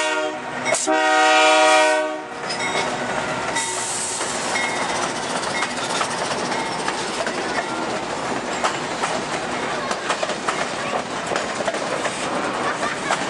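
A freight locomotive's horn sounds a short blast and then a longer one of about a second and a half. After that the train's cars roll past close by, a steady rolling noise with fast, irregular wheel clicks over the rail joints.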